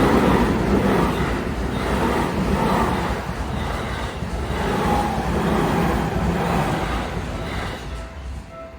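Seibu Ikebukuro Line electric train passing through a level crossing: a loud running noise that swells and eases as the cars go by, dying away near the end.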